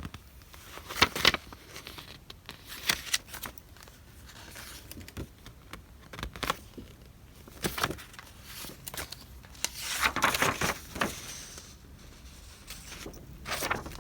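Paper goods and their packaging being handled by hand: irregular rustling and crinkling with a few sharp taps. A longer, louder stretch of rustling comes about two-thirds of the way through.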